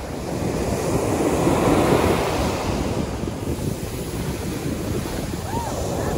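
Ocean surf breaking and washing up the sand, with wind buffeting the microphone. The wash swells to its loudest about two seconds in, then eases.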